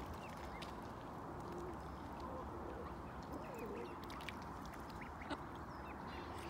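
Mallard hen and ducklings calling: a few soft quacks and scattered short, high peeps over steady background noise.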